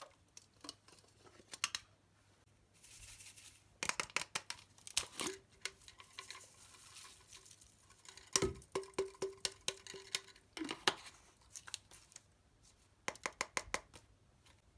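Close-up crafting sounds of slime-making materials being handled: clusters of sharp clicks, snips and crackles, with a brief crinkly rustle about three seconds in.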